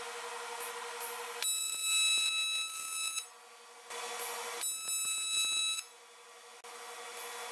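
AC TIG welding arc on aluminum buzzing in two short bursts of one to two seconds each. The arc strikes again at the very end. Between the bursts there is a lower, steady hum.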